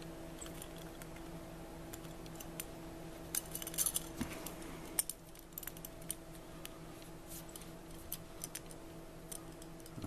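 Small metallic clicks and jingles of a bobby pin being turned in the keyhole of chain-linked handcuffs, working to release the cuff's deadlock. The clicks are scattered, with a quick cluster about three to four seconds in.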